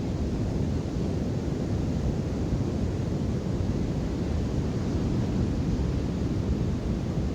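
Steady low rumble of wind buffeting the microphone, mixed with ocean surf.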